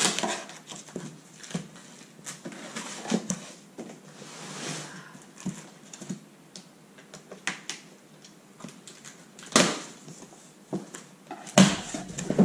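Cardboard box being opened by hand: a blade slitting the packing tape, the tape peeled off and the cardboard flaps pulled open, with scattered clicks and scrapes and a longer rasp about four seconds in. Two louder knocks come near the end.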